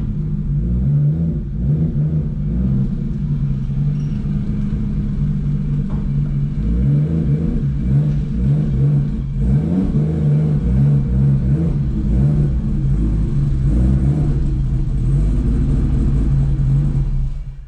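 Vehicle engine running at low revs, its pitch rising and falling slightly with the throttle. It cuts off abruptly at the end.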